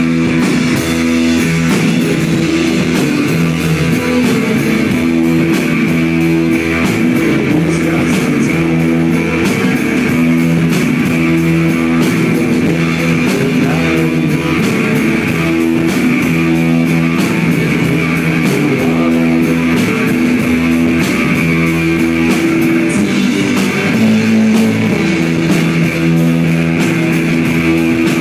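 Live psychedelic rock band playing loudly: electric guitar, bass and drums in a steady, repetitive groove of held notes.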